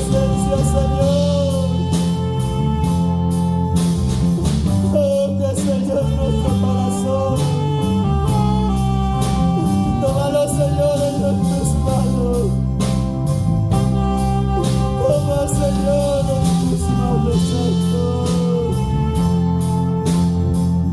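Live worship band music with a sustained bass, a steady beat and a wavering melodic lead line.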